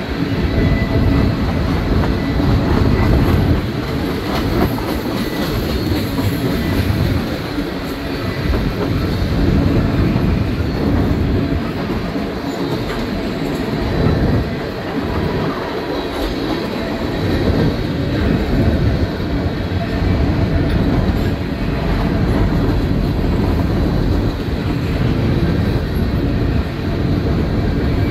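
A freight train's cars, mostly covered hoppers, rolling past close by: a steady, loud rumble of steel wheels on rail, with a quick run of clicks as the wheels pass over the track.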